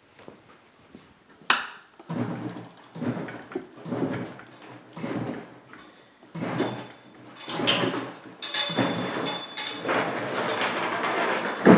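Irregular metal clanks, knocks and scraping as a heavy cast-iron milling-machine knee hanging from a chain hoist is handled and shifted. There is a sharp click about a second and a half in, and a denser stretch of scraping with a faint squeak in the last few seconds.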